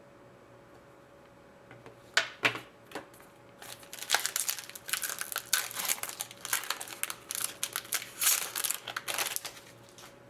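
Crinkling and crackling of card packaging being handled. Two sharp clicks come about two seconds in, then a dense run of crackles from about four seconds in until near the end. A faint steady hum runs underneath.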